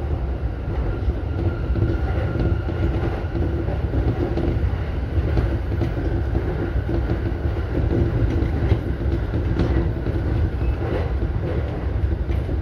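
E233-series electric commuter train running at speed, heard from inside the driver's cab: a steady low rumble with a faint hum and a few sharp clicks.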